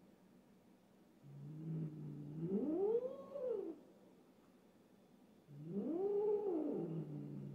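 Domestic cat caterwauling, a territorial yowl at another cat: two long calls a couple of seconds apart, each starting as a low, steady growl that swells up in pitch and falls away again.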